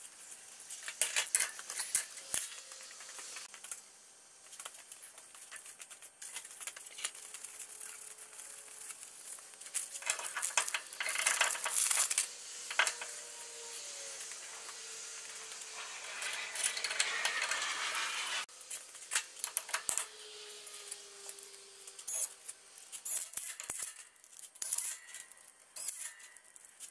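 Irregular metal clinks, taps and scrapes as steel parts of a Dana 44 front axle (axle shaft, spindle and hub hardware) are handled and fitted by hand. Two longer rushing noises of a second or two come about a third and two-thirds of the way through.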